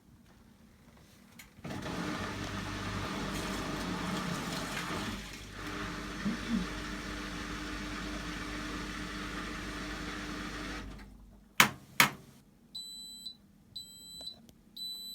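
Hotpoint washing machine running with a steady hum and rush for about nine seconds, then stopping. Two sharp clicks follow, then three electronic beeps, the last one longest: the machine signalling that the wash cycle has finished.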